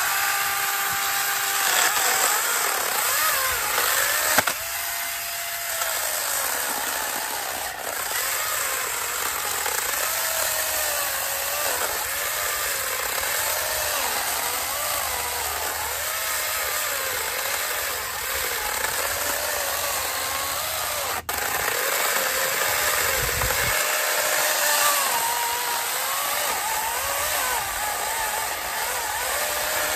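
Wild Badger 20-volt cordless electric chainsaw cutting through a log about 10 inches thick. The motor whine rises as it spins up at the start, then wavers up and down in pitch as the chain bogs and recovers under the load of the cut, dropping out for an instant about two-thirds of the way through.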